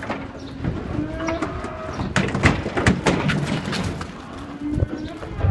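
Cattle hooves clattering and knocking on a livestock truck's metal unloading ramp and the concrete below as the cows come off the truck: a run of irregular sharp knocks.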